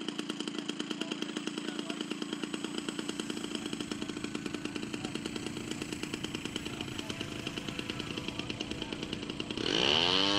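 Model airplane's small piston engine running steadily at takeoff power, a fast raspy buzz, as the plane rolls across the grass and lifts off. Near the end a louder tone rises sharply in pitch and then holds steady.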